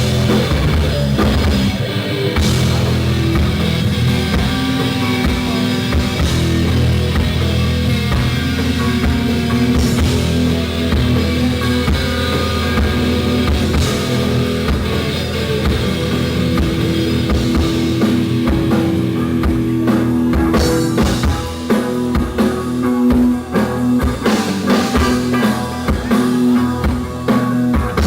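Live rock band playing, with electric guitar and drum kit. About two-thirds of the way through, the dense, held chords give way to a choppier, drum-led passage.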